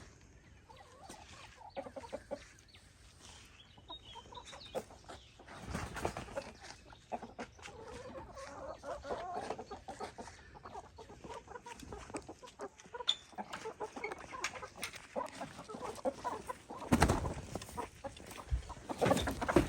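Chickens clucking and calling, with many short clicks and a few louder rustling bursts, the loudest near the end.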